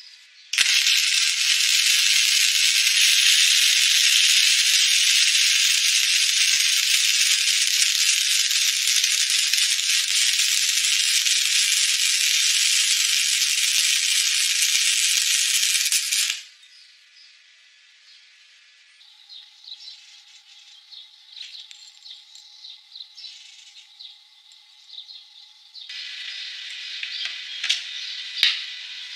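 MIG welding arc from a Telwin Maxima 200 Synergic crackling steadily. It starts abruptly and cuts off about sixteen seconds later when the torch trigger is released. Fainter clicks and handling noises follow near the end.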